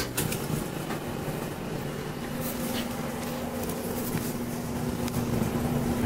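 Whirlpool gas dryer starting on a heat setting: a click, then the drive motor and drum running steadily, with a hum that comes in about two seconds in and grows slightly louder.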